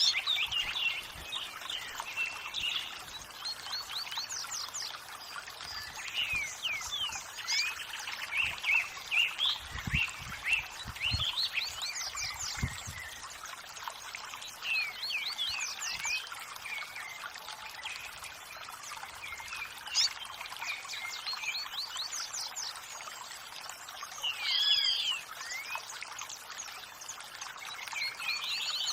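Several birds chirping and whistling in short calls over the steady trickle of running water.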